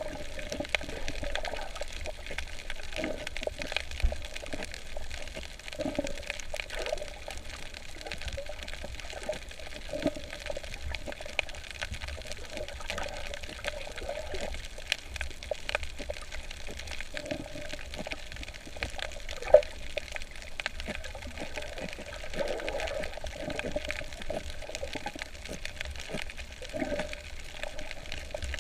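Water sloshing and bubbling around a snorkeller's camera, with irregular swells, scattered small clicks, and one sharp knock about two-thirds of the way through.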